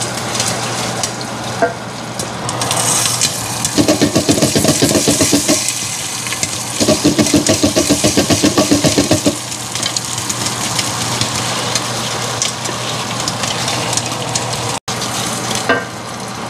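Popcorn popping in a covered stainless steel pot with a glass lid, with caramel sauce bubbling in a wok beside it, a dense steady crackle. Twice, for about two seconds each, the pot is shaken back and forth on the stovetop to keep the kernels from burning, a rapid rattling of about seven strokes a second.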